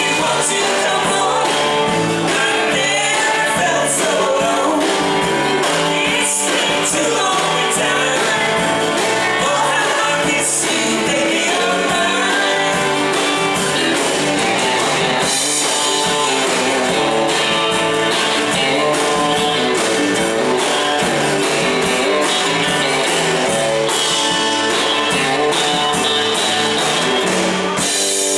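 Live band playing a song: electric guitar, mandolin, bass guitar and drum kit, with a woman singing lead.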